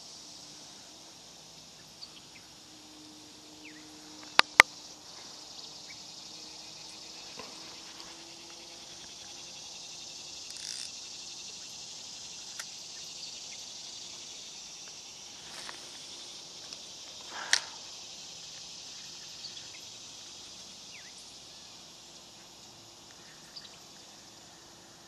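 Steady chorus of insects, heard as an even high hiss. Two sharp clicks in quick succession come about four and a half seconds in, and a softer click about two-thirds of the way through.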